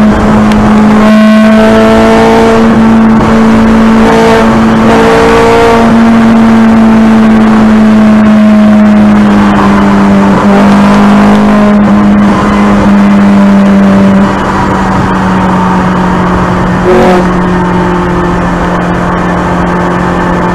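Ferrari 430 Scuderia's 4.3-litre naturally aspirated V8, heard from inside the cabin, running loud and steady at a near-constant engine speed. About two-thirds of the way through, its pitch and level drop a little.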